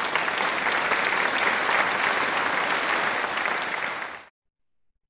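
Applause: steady clapping that cuts off abruptly about four seconds in.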